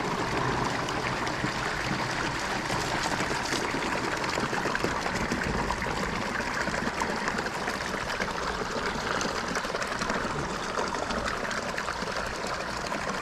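Water streaming and splashing steadily into an open pool filter tank, fed by the pool pump running at low speed to fill the tank before the lid goes on.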